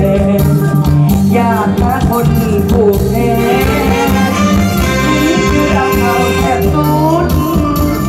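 Live band music from an Isan luk thung song, loud and continuous, with a melodic lead over a strong bass line.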